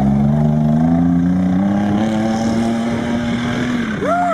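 Off-road 4x4's engine running hard under load, its pitch climbing slowly and then holding steady. Near the end a brief high tone sweeps up and back down.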